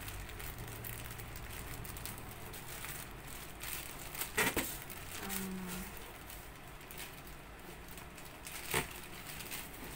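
Thin clear plastic bag crinkling as it is handled and opened, with a few sharper crackles about four and a half seconds in and again near the end.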